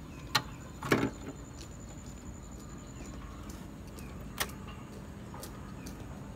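Handling noise from the opened radio-cassette recorder's plastic chassis and circuit board: a few sharp clicks, with a louder knock about a second in and another click past the middle, over a faint steady hum and a thin high whine in the first half.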